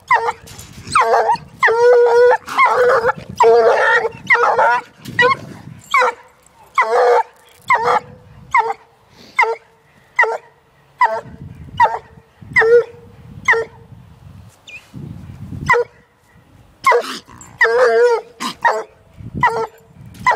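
Young Walker hound barking repeatedly at a caged raccoon: short, sharp barks about one to two a second, with a pause of a few seconds past the middle before the barking starts up again.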